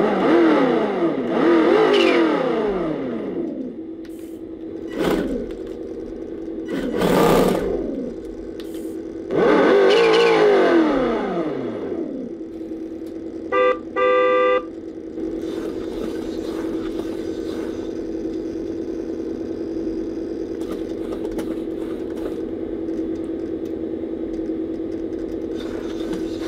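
RC car's electronic engine sound unit playing a simulated engine through its small speaker as the throttle is worked. Several revs in the first twelve seconds or so, each rising and then falling away in pitch. Two short beeps come around fourteen seconds, then a steady idle drone.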